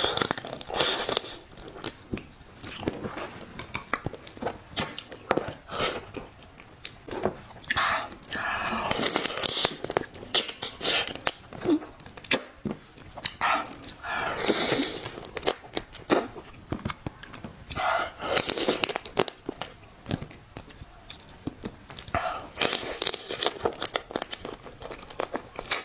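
Close-miked eating of raw marinated crab: repeated slurping and sucking as meat is drawn out of the legs and shell, with wet chewing and sharp cracks and crunches of shell.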